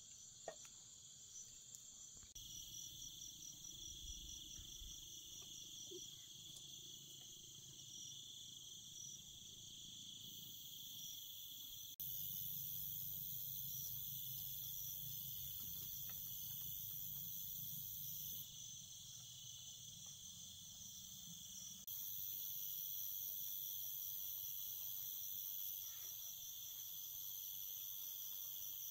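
Night chorus of crickets and other insects trilling steadily at several high pitches, stepping up abruptly in loudness a couple of times.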